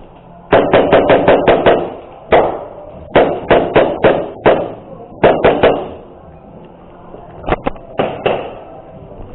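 Airsoft gun firing in quick bursts of sharp clicking shots, about six a second, three bursts, then a few single shots near the end.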